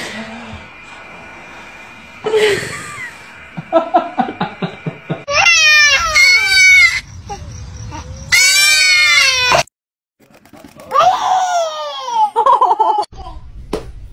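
Babies' and toddlers' voices: rhythmic bursts of laughter, then several loud, high-pitched, wavering squeals and cries that fall in pitch.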